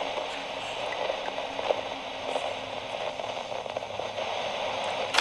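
Two-way radio static: a steady hiss with scattered crackles, as of an open channel with no voice on it, ending in a sharp click.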